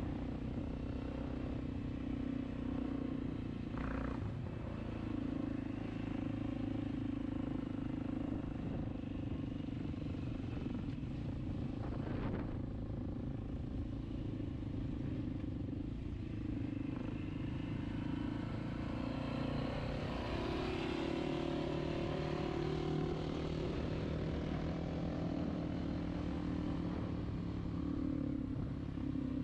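Dirt bike engine running while riding, its note shifting up and down with the throttle, with a couple of brief clatters.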